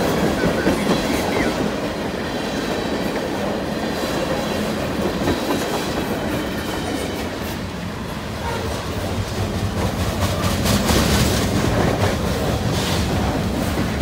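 Freight cars of a passing train rolling by: a steady rumble of steel wheels on rail with clickety-clack over the rail joints. The clacking grows louder and sharper after about ten seconds as the lumber flatcars go by.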